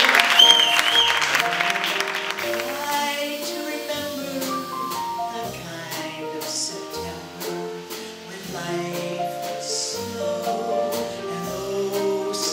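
Applause dies away over the first couple of seconds, with a short two-note whistle from the audience. Then a piano and an upright bass play a slow jazz intro in a small room.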